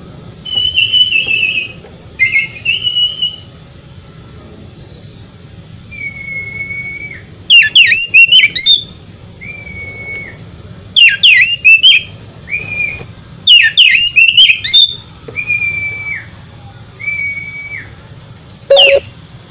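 Oriental magpie-robin (kacer) singing: single clear, level whistles repeated every few seconds, broken by three loud bursts of rapid, sweeping warbled notes, after two harsher, buzzy notes near the start.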